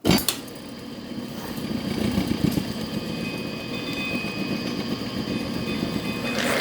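Cochrane-Bly metal shaper switched on with a sudden start, its motor coming up to speed over the first couple of seconds and then running steadily.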